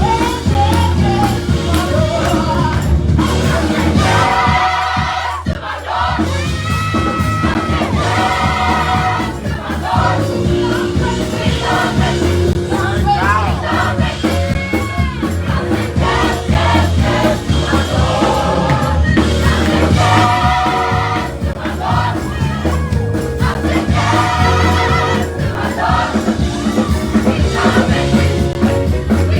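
Choir singing gospel-style church music over instrumental backing.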